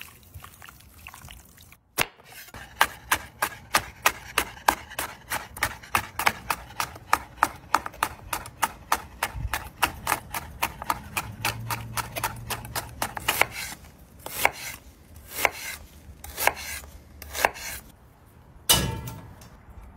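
Kitchen knife slicing bell peppers into strips on a cutting board: quick, even knocks of the blade on the board, about three a second, then thinning out to scattered knocks, with one heavy thump near the end.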